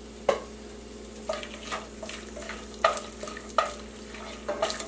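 Whole spices and dried red chillies sizzling in hot sesame oil in a nonstick frying pan, while a wooden spatula stirs them and knocks against the pan about eight times.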